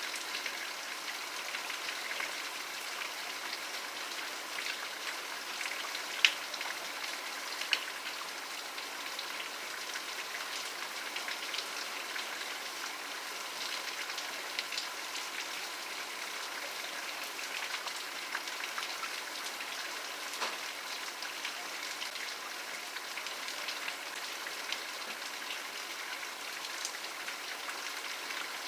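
Steady rain falling, a continuous hiss with individual drops ticking on a surface; two drops land noticeably louder about six and eight seconds in.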